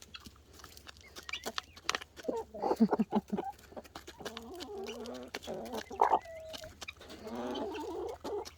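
Chickens clucking in a run of short calls, over scattered sharp ticks.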